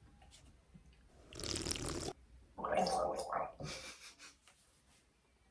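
A person's gurgling mouth and throat sounds in two short noisy bursts about a second apart, made while tasting a drink.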